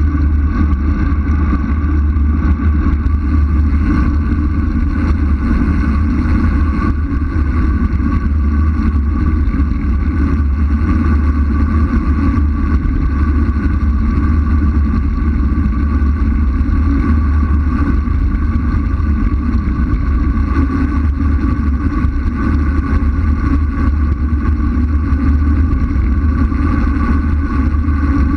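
Wind rushing over a bicycle-mounted action camera on a fast road descent: a loud, steady, low rumble that does not let up, with faint steady tones above it.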